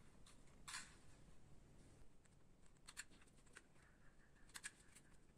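Faint clicks of a handheld paper hole punch going through paper cutouts, a few separate clicks with quiet paper handling between.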